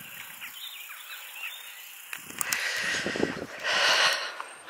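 Outdoor field ambience with faint high bird chirps, then from about two seconds in a rustling noise with a few soft thumps that grows louder near the end.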